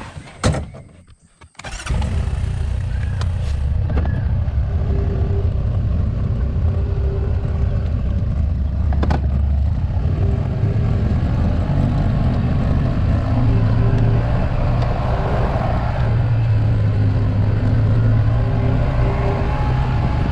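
Side-by-side utility vehicle's engine, coming in suddenly about two seconds in and then running steadily, after a few short clicks.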